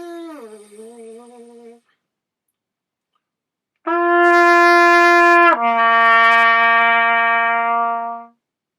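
A quieter buzzed note slides down in pitch, then after a pause a trumpet plays a loud held note and drops to a lower held note, the lower pitch made by relaxing the lips.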